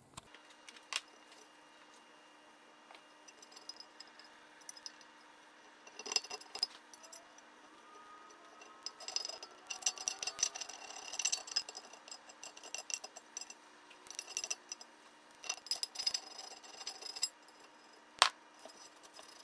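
Faint clinks and rattles of metal engine parts being handled: a two-stroke crankshaft with its bearings and seals being set into the crankcase half, with one sharp click near the end.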